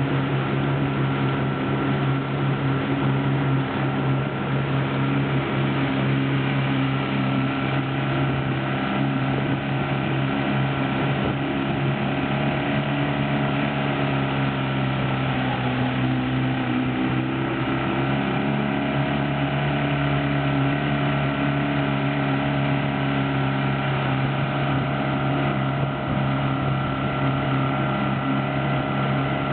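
Kiekhaefer Mercury Thunderbolt outboard motor running steadily at speed, with water rushing past the hull and wind. The engine note dips briefly and recovers about halfway through.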